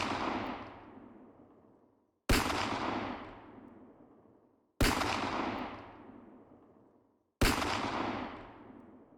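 Single gunshot sound effects, spaced about two and a half seconds apart. Each is a sharp crack followed by a long rolling echo that fades over about two seconds; three shots fall in full, and it opens on the fading tail of an earlier one.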